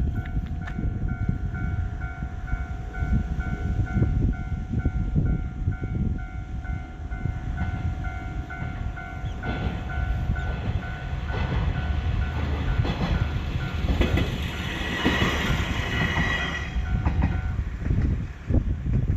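Level-crossing warning bell ringing in a steady, evenly repeating ding while an Amagi Railway diesel railcar passes over the crossing with rumble and rail clatter. A brief high-pitched whine comes about three quarters of the way through, and the bell stops shortly before the end.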